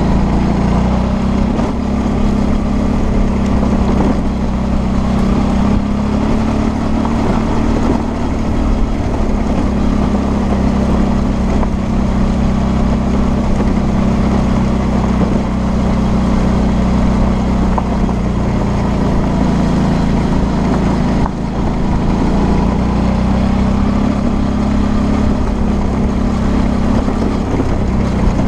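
Suzuki V-Strom 650's V-twin engine running steadily at moderate revs while the bike rides a gravel track, its pitch drifting gently up and down with the throttle, over a steady rush of wind and tyre noise.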